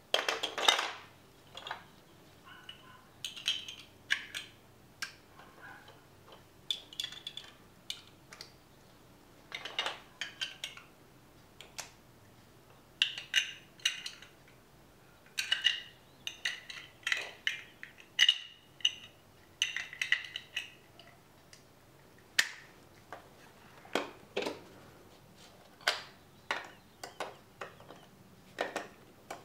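Plastic LEGO DUPLO bricks clicking and clattering as a small child picks them up and stacks them, with irregular sharp clacks and short flurries of rattling, busiest in the middle.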